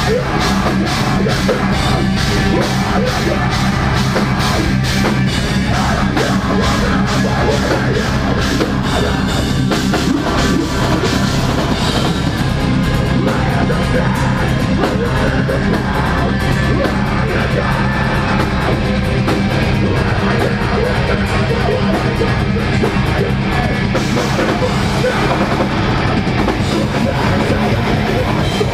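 A live deathcore band playing heavy, distorted guitars, bass and drums at full volume. Fast, even drum hits drive the first twelve seconds or so, then the pattern changes.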